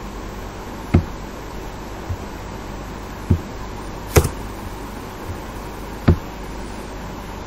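Computer mouse and keyboard clicks: about six short, separate clicks a second or so apart, the loudest about four seconds in, over a steady background hiss.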